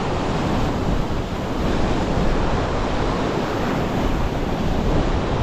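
Strong wind buffeting the microphone over the steady wash of heavy surf breaking on a rocky shore.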